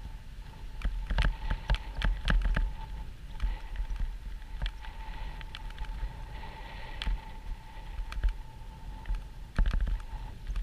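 Fishing reel being cranked to retrieve line: a steady whir with irregular clicks and knocks, over a low rumble of wind on the microphone.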